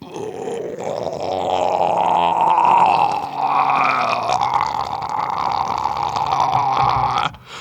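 A long, wet, gurgling comic sound effect that stops abruptly near the end.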